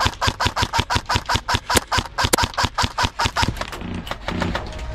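Airsoft guns firing a fast, uneven string of sharp shots, about eight a second, that thins out about three and a half seconds in.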